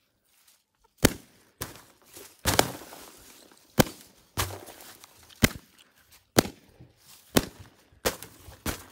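Latex confetti balloons bursting one after another: about ten sharp bangs, roughly a second apart.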